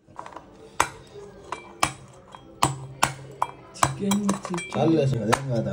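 Heavy kitchen knife chopping through mud crab shell and legs onto a wooden cutting board: a series of sharp knocks, roughly one a second.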